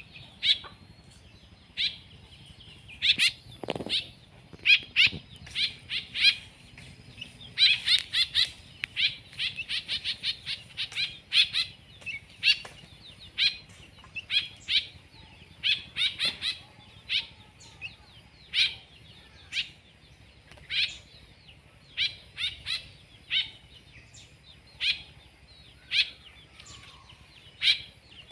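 Pet songbirds giving short, sharp chirps again and again, with a quick run of calls about eight to eleven seconds in.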